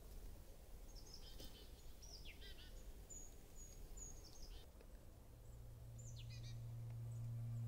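Small birds calling outdoors over a faint outdoor hiss: a few short bursts of high, quickly falling notes, and thin whistles a few seconds in. A low steady drone fades in from about five seconds in and grows louder.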